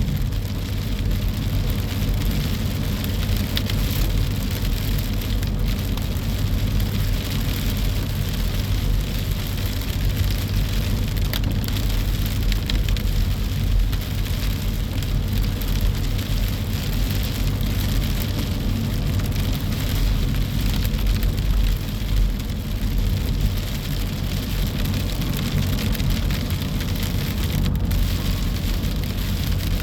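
Coastal windstorm with steady rain falling and gusting wind rumbling on the microphone.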